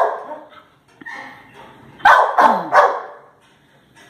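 Dog making two short, harsh sounds a little under a second apart about two seconds in, after a fainter one about a second in. The dog has a cough.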